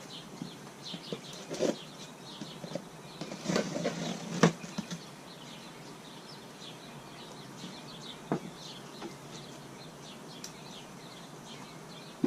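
A cardboard shipping box being opened and its contents handled: rustling and crackling with scattered knocks, the sharpest about four and a half seconds in.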